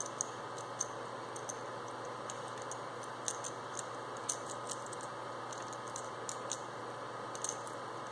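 Light, irregular clicks and ticks of small metal and plastic parts as a starter motor's brush holder assembly is handled in the fingers, over a steady background hum.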